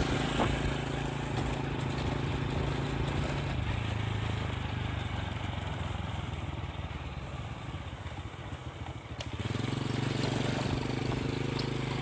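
Honda motor scooter engine running while it is ridden, a steady hum that weakens and wavers in the middle, then steadies and grows a little louder again near the end as the scooter comes down to idle.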